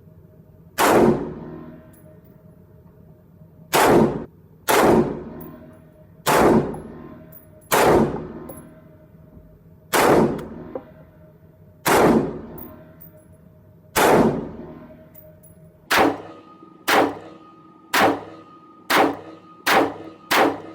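Black Rain Ordnance Fallout 15 AR-15 rifle in 5.56 firing single shots from a bipod, each a sharp crack with a short echoing tail. The shots come one to two seconds apart at first, then quicken to about one a second or faster near the end, around fifteen shots in all.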